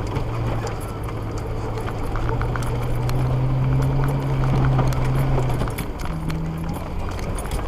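Jeep Cherokee XJ engine pulling steadily at low speed through deep ruts, louder for a couple of seconds in the middle and changing note near the end, with frequent knocks and clicks as the Jeep bumps over the rutted, icy ground.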